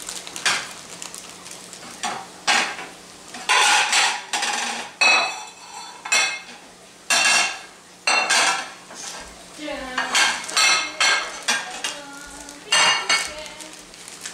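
Small plastic packet of shredded cheese crinkling in a series of loud rustles as it is opened and shaken out over a skillet.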